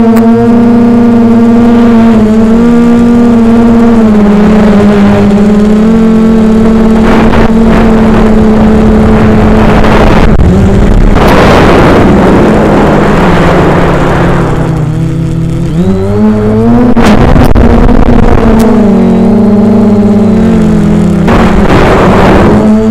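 A quadcopter's electric motors and propellers are heard loud from the onboard camera, their hum bending up and down with the throttle. A rush of wind noise comes about ten seconds in. Around fifteen seconds the pitch sinks low as the throttle eases off, then it climbs back up.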